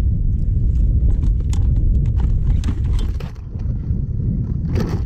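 Wind buffeting the microphone, with scattered knocks, clicks and rattles from hands working a sheepshead in a landing net on a plastic kayak. A louder scuffle comes near the end.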